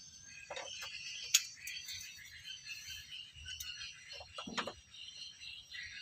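Steel locking pliers being adjusted and handled on a wooden bench: a sharp metallic click about a second in and a duller clunk around four and a half seconds in. Under them runs a steady background chorus of frogs and insects.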